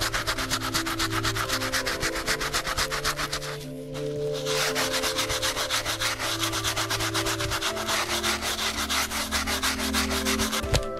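Handheld brush scrubbing a leather sneaker with foamy cleaner in rapid back-and-forth strokes, pausing briefly about four seconds in.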